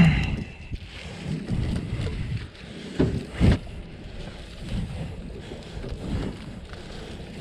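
Collapsible mesh crab pot being handled on a boat, with wind buffeting the microphone. There are two knocks about three seconds in.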